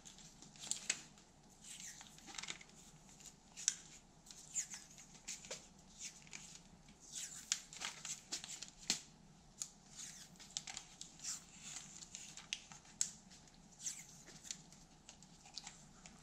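Electrical tape being pulled off the roll and wrapped around a plastic fly swatter handle: many short, irregular crackles and rips.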